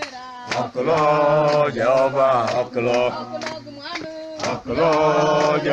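A group of voices singing a worship chorus together in long held notes, with sharp claps keeping the beat about twice a second.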